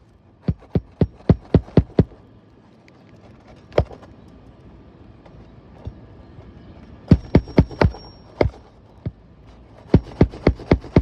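Hammer driving roofing nails through a shingle, in quick runs of about four or five blows a second with single blows between.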